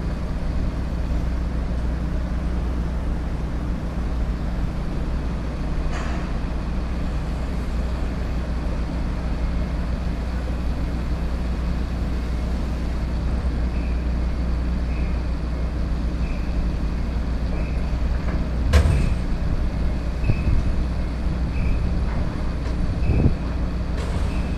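Steady low rumble of idling engines and road traffic around a ferry harbour, with a sharp knock about three-quarters of the way through. A faint beep repeats about once every 0.7 s through the second half.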